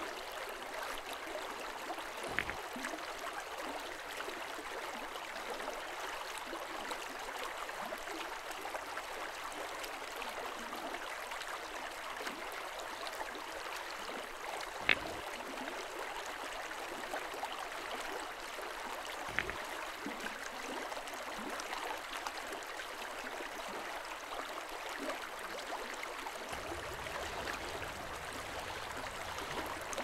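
Shallow river running over pebbles, a steady soft rippling of water, with a few small clicks scattered through it.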